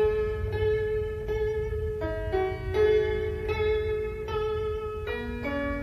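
Steel-strung Chinese zheng (zither) played solo: a slow melody of single plucked notes, one every half second to second, each ringing on. Near the end, a note's pitch steps down and then back up, as when a string is pressed behind its movable bridge.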